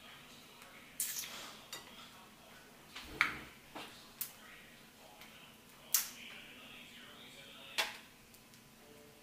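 Cooked shrimp being peeled by hand, close to the microphone: irregular sharp clicks and cracks of shell, about seven of them, the loudest about a second, three seconds, six seconds and nearly eight seconds in, with faint rustling between.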